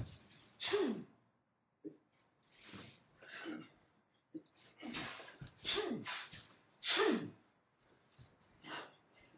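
Goju-ryu karateka exhaling forcefully in time with their kata techniques: a series of short, sharp huffs, several of them voiced grunts that drop in pitch, the loudest about 7 seconds in. Two short clicks fall between them.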